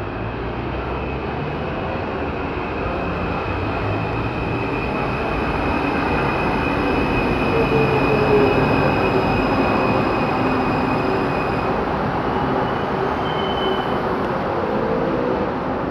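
Santiago Metro AS-02 train pulling into the station and braking to a stop. The running noise grows loudest as the train comes alongside about halfway through, and a high electric whine fades out as it slows.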